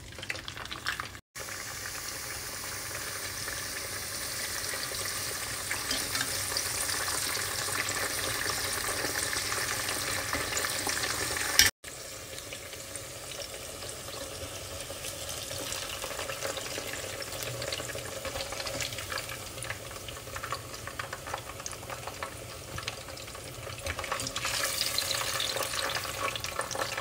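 Zucchini slices sizzling as they fry in hot oil in a pot: a steady crackling hiss. It cuts out abruptly twice, about a second in and near the middle, and swells again near the end.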